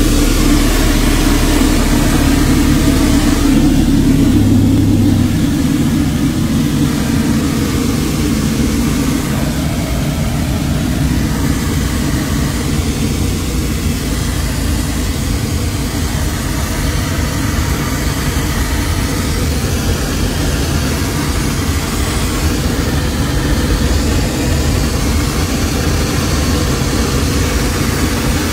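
Loud steady roar of engine and rushing-air noise inside a Boeing 737 airliner cabin, depressurized after an in-flight engine explosion. It is slightly louder for the first five seconds or so.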